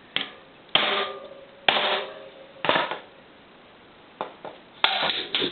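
Hammer blows driving a new cartridge bearing into a Hope XC bike hub shell: about seven sharp strikes, mostly about a second apart with a quicker pair near the end, each with a short metallic ring.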